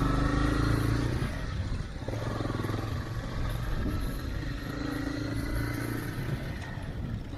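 Motorcycle engine running as the bike rides along, its note rising and falling with the throttle and dipping briefly about two seconds in.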